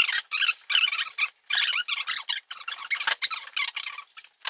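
Metal drawer slides of the Xerox Alto's backplane chassis squeaking as the chassis is pushed into the cabinet: a run of short, wavering, high-pitched squeals with a few brief pauses.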